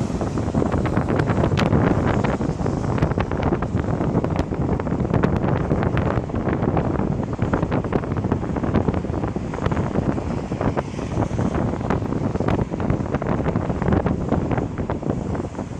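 Wind buffeting the microphone: a loud, steady rumble with frequent crackles.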